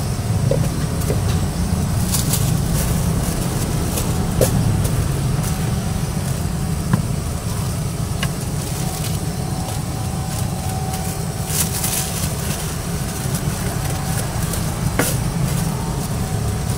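Gas wok burner running steadily under a lidded wok, a constant low rumble. A few light clicks and brief plastic rustles come over it.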